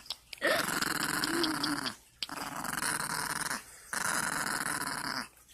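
Dog growling: three long, grouchy growls with short breaks between them.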